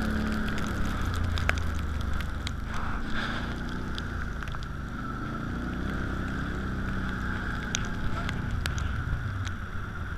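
Can-Am ATV engine running under way, heard from on board, its pitch easing off and then rising and falling slowly with the throttle around the middle.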